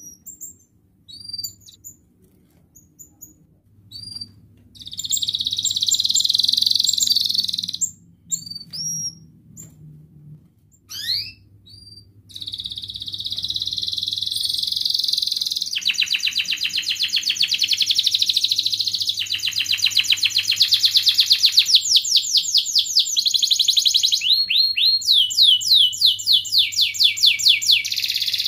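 Domestic canary singing: a few short high chirps, then long buzzing trills, then fast rolling trills of rapidly repeated notes that grow louder toward the end.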